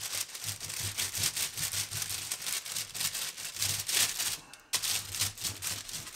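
Rolling pin pressed and rolled over baking paper on a sticky muesli-bar mass, the paper crinkling and rustling in a dense crackle, with a brief pause about four and a half seconds in.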